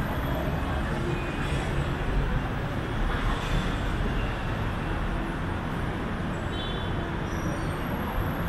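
Steady hum of road traffic and open-air ambience on an elevated train platform, an even low rumble with no distinct events.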